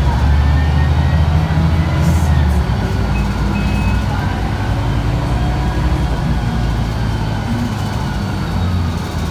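Mercedes-Benz O405G articulated bus heard from inside the cabin on the move: a steady low diesel engine drone with road noise, the engine note easing about two and a half seconds in.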